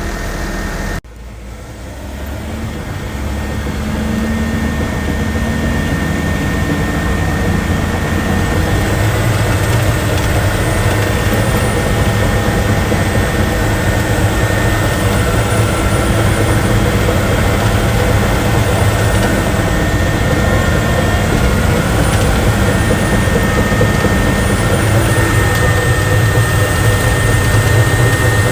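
Crawler bulldozer's diesel engine running, dropping out briefly about a second in and then building up over the next few seconds to a steady, loud run, with a constant high whine over it.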